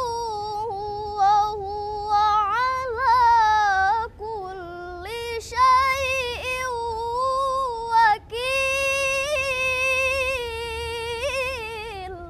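A girl's unaccompanied voice reciting the Quran in Arabic with melodic tajwid chanting: long held, ornamented notes, with short breath pauses about four and eight seconds in.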